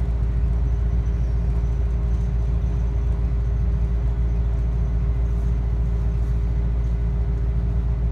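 Steady low rumble of a moving Adelaide Metro diesel railcar heard from inside the carriage, with a constant hum running through it.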